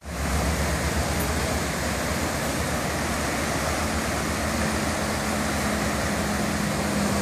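Steady rush of a swollen, muddy river running through rapids. A faint low hum joins about three seconds in.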